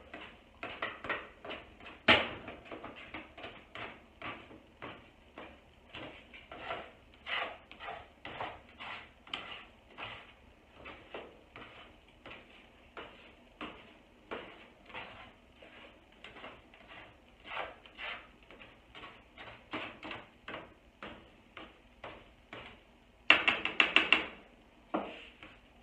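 Spatula scraping and knocking in a frying pan as scrambled eggs are stirred, in short irregular strokes two or three a second. Near the end comes a quick run of four or five louder taps on the pan, then one more.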